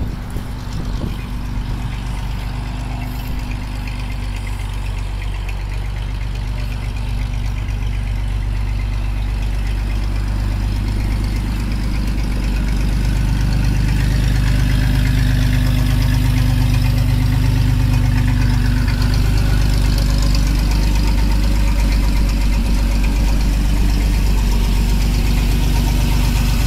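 Big-block GMC V6 truck engine idling steadily, getting louder about halfway through.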